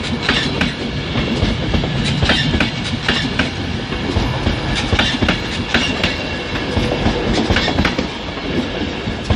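Virgin Trains Pendolino electric train moving off, with a steady rumble and sharp clickety-clack, often in pairs, as its wheels cross rail joints and points.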